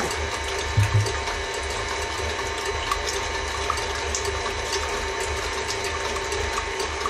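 KitchenAid Artisan stand mixer running steadily with its wire whisk, beating eggs and water in a stainless steel bowl. A brief low thump comes just under a second in.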